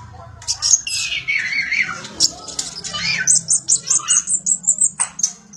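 A kolibri ninja (konin) sunbird singing a fast, squeaky, high-pitched song. It opens with a falling twitter, then from about three seconds in runs into a rapid string of sharp high chirps.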